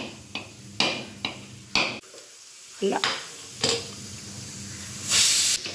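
A coconut being husked and broken by hand: several irregular sharp knocks and scrapes, then a short hiss near the end.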